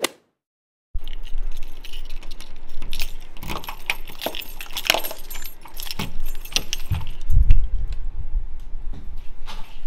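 A keyring with several keys jangling and clicking as a key is worked in a door's deadbolt lock, after about a second of silence. A few dull low knocks come about three-quarters of the way through.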